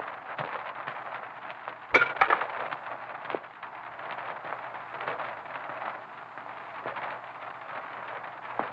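Crackling surface noise and a steady low hum from an early sound-film soundtrack, with a sharp clattering clink about two seconds in and a smaller click a second later.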